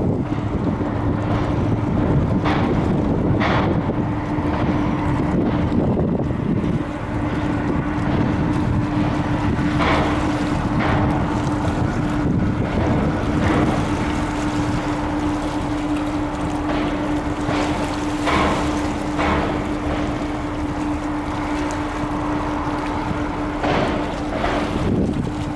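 Steady low engine hum of a large ship, most likely an Interislander ferry at the terminal, with wind rumbling on the microphone. Short splashy water sounds come every few seconds.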